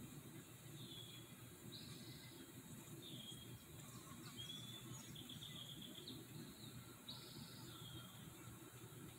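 Faint short high chirps of a small bird, repeated every second or so, with a quick rattling trill about halfway, over a steady low background rumble.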